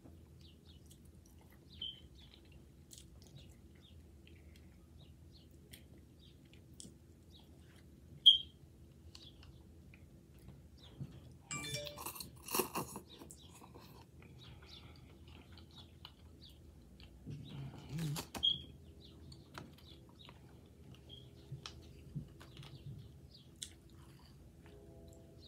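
A person chewing instant noodles close to the microphone, with scattered mouth clicks and smacks. There is a louder stretch of chewing about 11 to 13 seconds in and again around 18 seconds in, and one brief sharp click about 8 seconds in is the loudest sound.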